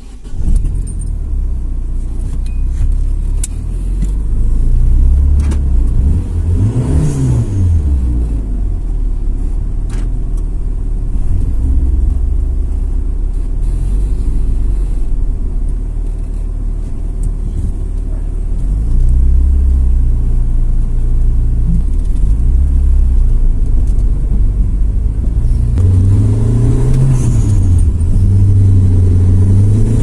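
Turbocharged Proton Wira's four-cylinder engine heard from inside the cabin, driving off and accelerating through the gears. The revs climb and drop several times as it shifts, over a steady low engine rumble.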